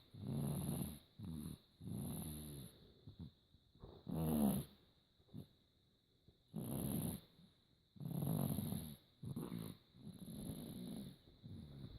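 A sleeping dog snoring: rattling snore breaths about every second or two, with a pause of about two seconds in the middle.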